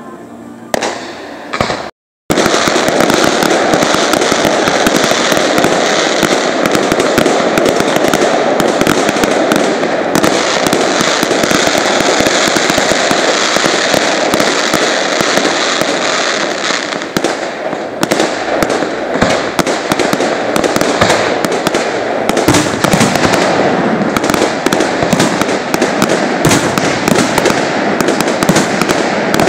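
Aerial firework shells bursting in a dense, continuous barrage of bangs and crackling. After a quieter opening it starts abruptly about two seconds in.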